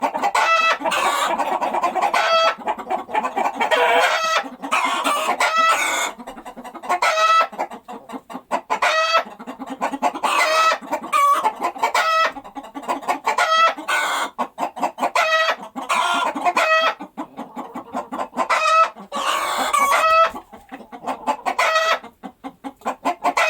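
Domestic hen clucking and cackling: runs of rapid short clucks, each run ending in a louder drawn-out call, repeating every one to two seconds.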